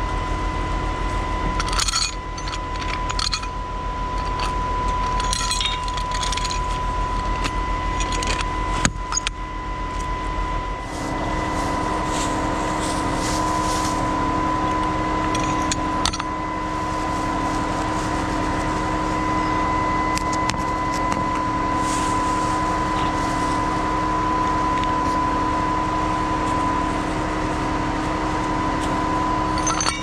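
Heavy diesel truck engine running steadily, with metallic clinking and rattling during the first several seconds. About eleven seconds in, the engine note shifts from a deep rumble to a steadier, higher hum.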